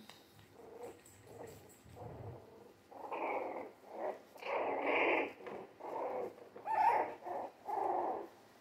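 Three-week-old Jack Russell terrier mix puppies growling and whining as they wrestle in play: faint at first, then a string of about eight short, louder puppy growls from about three seconds in.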